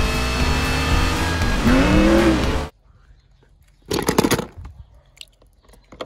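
Film soundtrack of race cars with music, cutting off suddenly a little over halfway through. About a second later comes a splash of water as a hand plunges into a plastic tub of water among die-cast toy cars, then small drips and clinks.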